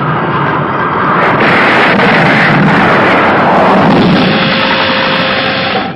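Cartoon sound effect of a spaceship flying: a loud, steady rushing roar like a jet, swelling about a second in and cutting off suddenly near the end.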